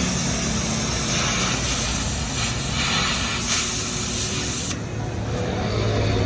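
A loud, steady hiss that cuts off suddenly about three-quarters of the way through, over a steady low hum.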